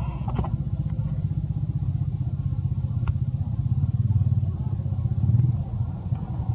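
A steady low rumble, with a few faint light clicks near the start and once about three seconds in.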